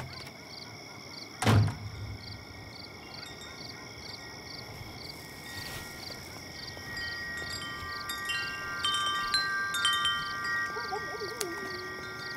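Chime-like ringing tones, several notes held and overlapping, come in about seven seconds in. Under them runs an even high chirping of night insects, about two chirps a second. A single loud thud comes about a second and a half in.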